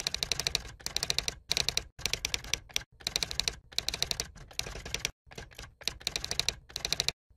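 Typing sound effect: rapid runs of key clicks, each under a second long, broken by short pauses, about a dozen runs in all, keeping time with text being typed out letter by letter.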